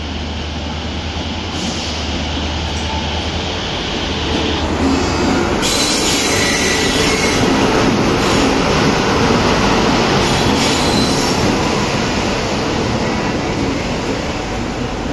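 Indian Railways electric locomotive and its passenger coaches rolling past close by as the express slows into the station. A low hum is heard at first, then a high screech about six seconds in as the coaches go by.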